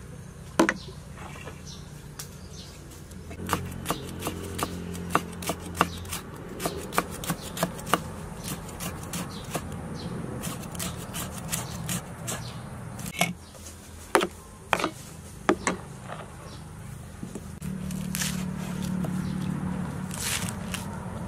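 Cleaver chopping red chillies and then green onions on a wooden chopping board: irregular sharp knocks of the blade on the wood. A low drone comes and goes in the background twice.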